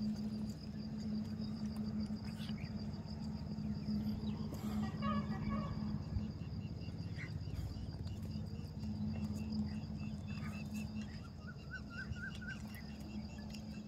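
Insects chirping in two steady, pulsing trills, one high and one a little lower that joins about halfway through. Under them runs a steady low hum, with a few short chirps.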